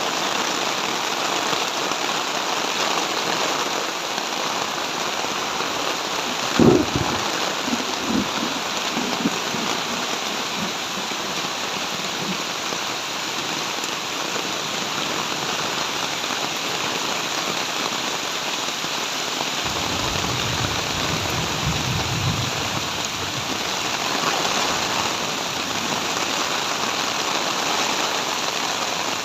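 Heavy rain falling steadily. A sharp thump comes about seven seconds in, followed by a few lighter knocks, and a low rumble follows a little past the middle.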